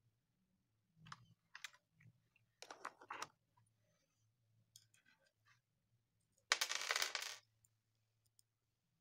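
Small metallic clinks and knocks as the aluminium heat sink and screws are handled against the plastic induction cooktop casing, with a louder scraping noise lasting about a second two-thirds of the way in.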